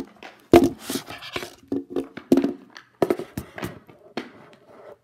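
Handling noise from a phone being picked up and set in place: several sharp knocks and rubbing close on its microphone.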